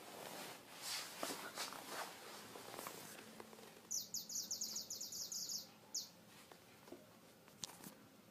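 An animal chirping: a fast run of about a dozen high chirps over two seconds, after some rustling and light knocks.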